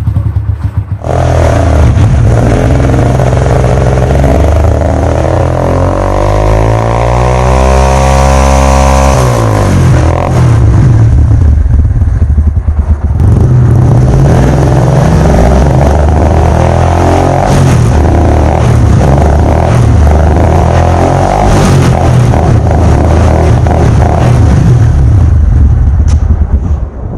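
Honda CD 70's small single-cylinder four-stroke engine running through an aftermarket heavy-bass exhaust, picking up about a second in and revved up and down several times, with one long rev rising and falling in the middle. It shuts off near the end.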